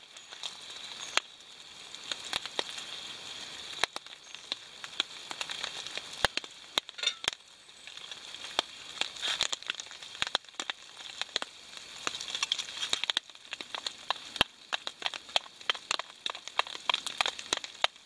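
Irregular sharp clicks and taps of a knife and spoon against a plastic bowl as a ripe banana is sliced into beaten eggs, then stirred and mashed, over a steady faint hiss.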